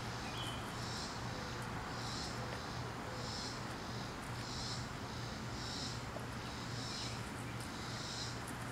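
A rhythmic, high, hissing insect call pulsing about once a second, over a steady low hum.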